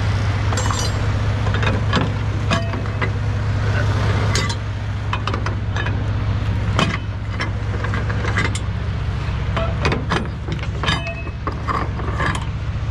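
Diesel truck engine idling steadily, with scattered metallic clicks and clanks from the flatbed's cargo straps and strap winches being undone.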